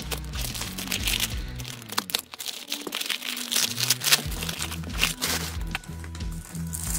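Thick silver foil packaging crinkling as it is unwrapped by hand, in irregular rustling bursts. Background music with a repeating bass line runs underneath and drops out for a couple of seconds in the middle.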